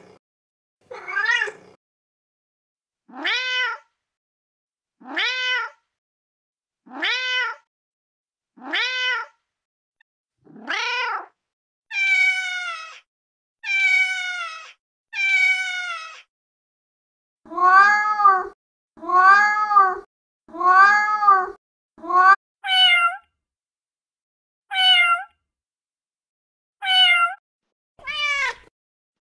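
Recorded domestic cat meows played one after another from a cat-sounds app: more than a dozen separate meows with short silent gaps, in runs of two or three matching calls, each run a different cat's voice and pitch.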